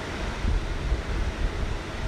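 Steady rumbling background noise, heaviest at the low end, with a louder low bump about half a second in and another just over a second in.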